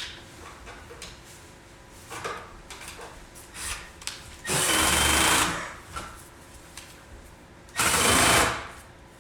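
Cordless drill driving screws into sheet metal in two short runs about three seconds apart, each lasting about a second, with small clicks of handling in between.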